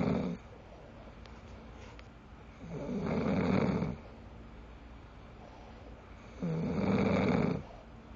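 A man snoring in his sleep, habitually and badly: the tail of one snore right at the start, then two long snores of about a second each, some three and a half seconds apart.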